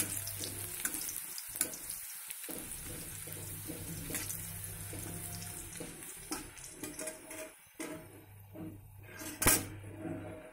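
Food sizzling in an iron wok on a gas burner while a steel spoon scrapes and knocks against the pan as it is stirred. The sizzle fades in the second half, and there is a louder clank of the spoon near the end.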